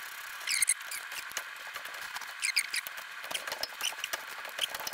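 Hand socket ratchet clicking in quick runs as 13 mm brake caliper bolts are backed out, over a steady faint hum.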